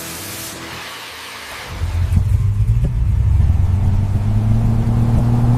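A fading hiss, then, about a second and a half in, a car engine comes in with a low, steady note that holds to the end.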